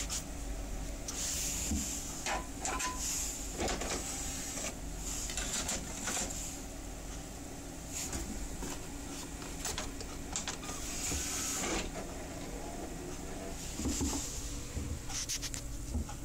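Desktop PC running with a steady fan hum while its optical drive tray is worked and a CD-RW is loaded. Mechanical clicks and whirring from the drive, with repeated short bursts of handling noise.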